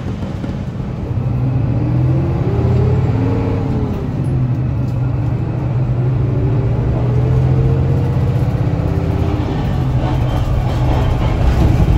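Loud running noise of old Tosaden streetcars heard from inside a city bus running alongside them: a deep drone with a motor whine that rises and then falls in pitch twice.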